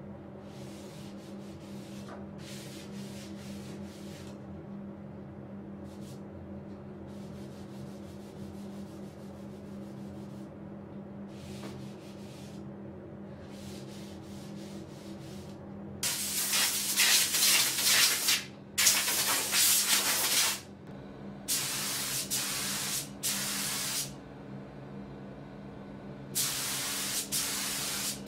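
Faint rubbing strokes of an abrasive sanding sponge de-nibbing the finished wooden plinth frame between coats. After about sixteen seconds, a compressed-air spray gun hisses in five or so bursts of one to two seconds as it sprays the next coat of finish, over a steady low hum.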